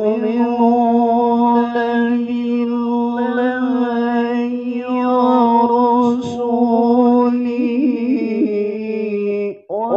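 A man's voice reciting the Quran in melodic tilawah style, drawing out one long phrase on a nearly steady pitch with small ornamental turns. The phrase breaks off near the end and a new one begins right after.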